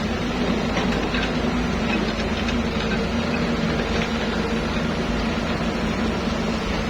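Excavator's diesel engine running steadily with a low hum, with a few faint clicks.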